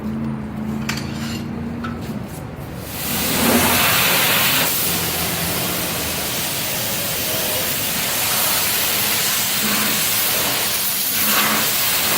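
A self-serve car wash's high-pressure wand starts spraying water about three seconds in: a loud, steady hiss of spray.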